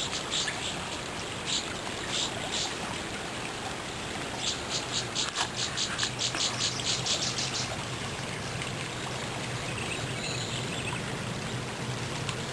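Creek water running steadily. Small birds chirp over it: a rapid string of high chirps, about five a second, in the middle, and a faint call near the end.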